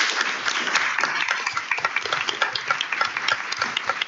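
Audience applauding: many hands clapping together.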